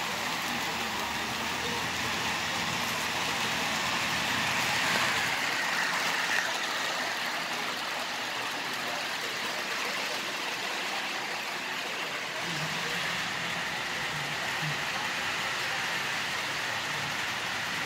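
HO-scale model diesel locomotives running on a layout, giving a steady whirring hiss of motors and wheels on track, with a slight swell about five seconds in.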